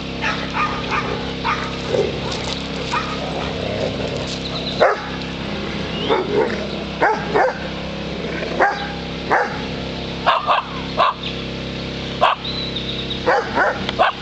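A dog barking in short, sharp barks, a few faint yips at first, then louder barks about once a second from about five seconds in, over a steady background hum.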